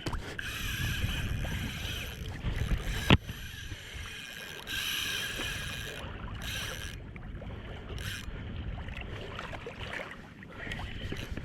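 Fishing reel's drag whirring in several bursts of a second or two as a hooked fish pulls line off, over low wind and water rumble. A single sharp knock about three seconds in.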